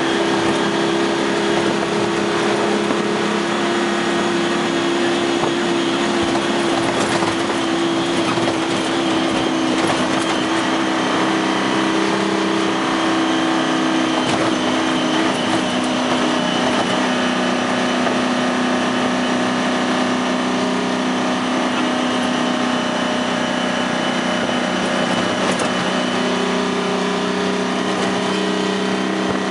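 6V53 Detroit Diesel two-stroke V6 pulling a 1972 Dodge AT4-760 prime mover along the road, heard from inside the cab along with road noise. The engine note holds steady, shifting slightly in pitch a few times.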